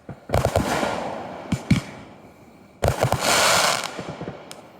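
Fireworks going off: a bang about a third of a second in with a fading crackle, two sharp cracks about a second and a half in, then another bang near three seconds followed by about a second of dense crackling hiss, and one last small pop near the end.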